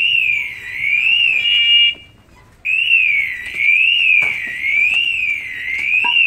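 PASS (personal alert safety system) alarm on a firefighter's SCBA pack sounding its man-down signal: a loud tone sweeping up and down about once a second. About two seconds in it switches briefly to steady beeping tones, stops for half a second, then starts sweeping again, with a faint knock or two as the pack is handled.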